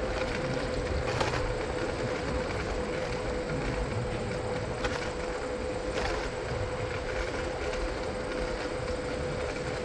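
Steady rolling and wind noise from a bike riding along a city street, with a constant hum under it and a few brief clicks or rattles.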